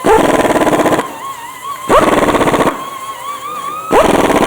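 Pneumatic impact wrench hammering in three bursts of about a second each, each starting with a quick rising whine, as it runs down the socket-head bolts that hold the pump adapter on.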